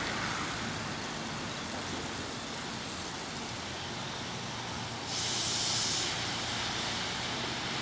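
Garden hose spray nozzle shooting a long jet of water onto pavement, a steady hiss and spatter, on its far-reaching jet setting. About five seconds in the hiss turns louder and higher for roughly a second before settling back.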